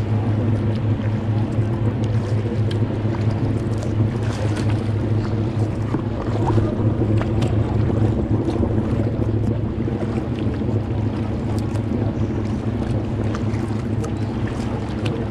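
A passenger tour boat's engine running with a steady low hum, over water noise and irregular splashes from kayak paddle strokes.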